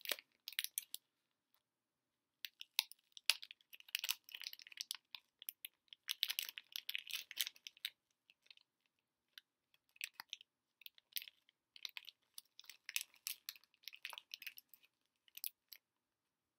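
Chocolate wrapper crinkling and rustling in bursts as hands open the packaging, with two short pauses.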